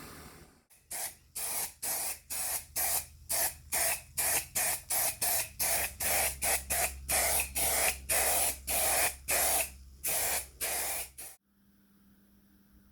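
Short bursts of spray from a spray nozzle, about two or three a second, stopping abruptly near the end.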